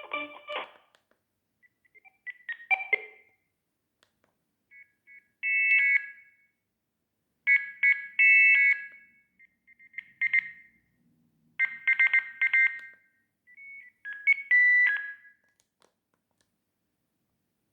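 Sagem myX-3 mobile phone playing its alert tones through its small speaker: a melodic ringtone ends just under a second in, then about six short, high-pitched beeping jingles follow one after another with pauses between them, typical of a phone's SMS message tones.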